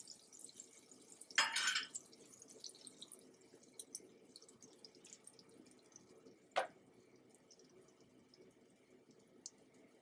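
Melted butter sizzling faintly on a hot griddle, a fine scatter of tiny crackles and pops. A short rustle comes about a second and a half in, and a single sharp tap at about six and a half seconds.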